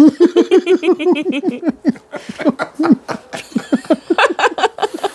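Hearty laughter: a long run of short ha-ha pulses, about five a second, growing more spaced and gasping toward the end.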